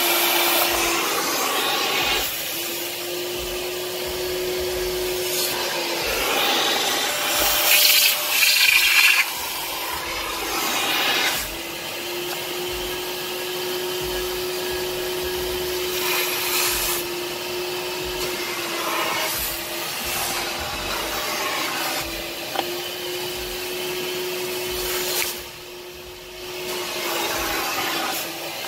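Kärcher Puzzi 10/1 spray-extraction cleaner's vacuum running as its upholstery nozzle is dragged over a fabric car seat, sucking dirty water out of the fabric with a rushing hiss that swells with each stroke. A steady tone runs under it and drops out a few times.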